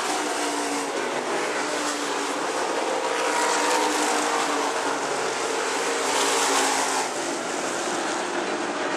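Stock car engines running at speed around a dirt oval, a steady din that swells as cars pass, loudest about three and a half and six seconds in.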